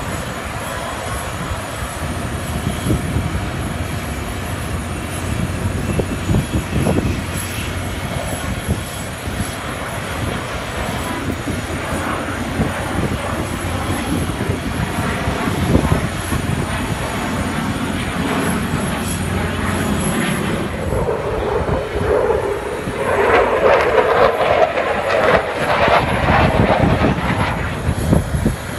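F-16 fighter jet's engine noise during a slow, nose-high flypast: a continuous rumbling rush that grows louder and harsher about twenty seconds in, then drops back near the end.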